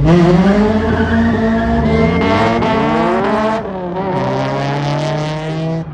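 Sports car engine revving hard as the car accelerates away, its pitch climbing for about three and a half seconds, dipping briefly, then holding steady at high revs.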